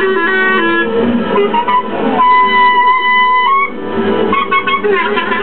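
Instrumental music: quick runs of pitched notes over a lower accompaniment, with one high note held for about a second near the middle.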